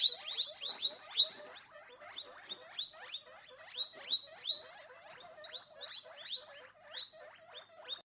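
Guinea pig squeaking: a quick, steady run of short high squeaks, about two or three a second.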